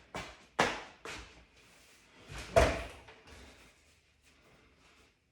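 A few sharp knocks and clunks in quick succession, the loudest about two and a half seconds in.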